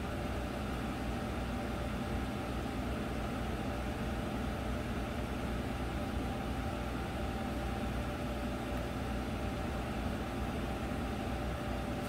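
Steady hum of a 2014 Chevy Silverado's HVAC blower fan stuck running on high, with a few faint steady tones in it. The fan is stuck on high because the climate control head is dead.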